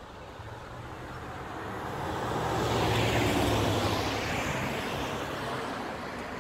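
A road vehicle passing on the street: engine and tyre noise swells to a peak about three seconds in, then fades away.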